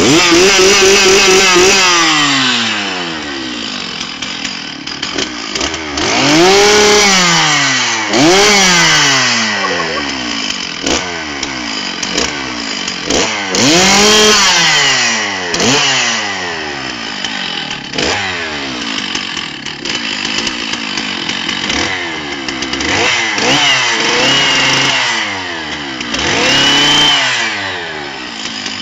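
Chainsaw engine revved up again and again, its pitch rising sharply then sinking back each time the throttle is released.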